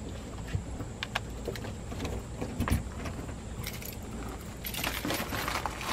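A bunch of keys clicking in a front-door lock and jangling as they are handled and pulled out, with a denser run of jangling in the second half.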